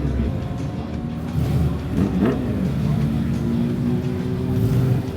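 Car engine revving and accelerating, its pitch sweeping up and down about two seconds in, then running steadier, with music playing underneath.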